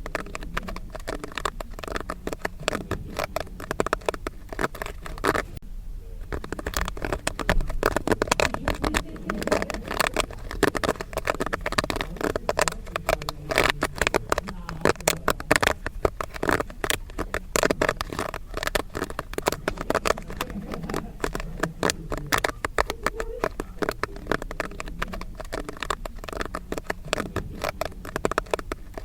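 Popcorn kernels popping in rapid, dense succession, a steady crackle of many overlapping pops, with a brief lull about six seconds in.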